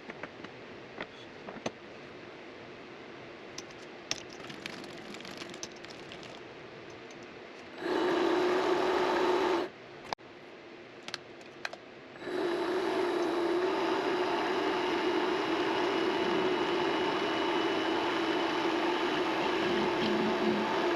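Mini lathe being set up and run: scattered metal clicks and knocks of handling for the first eight seconds or so, then the lathe's motor and spindle run with a steady even hum for about two seconds and stop, and after a few more clicks start again about twelve seconds in and keep running steadily.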